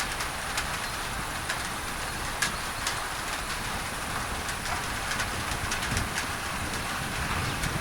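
Steady rain on a tin roof, a dense hiss with sharp individual drop ticks scattered through it, under a layer of added pink noise.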